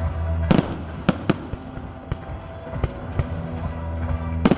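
Aerial firework shells bursting in a series of sharp bangs, the loudest about half a second in and near the end, with music playing underneath.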